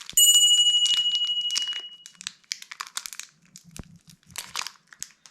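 A bright ringing chime strikes just after the start and fades away over about two seconds. Throughout, packaging crinkles and rustles as light plasticine is handled.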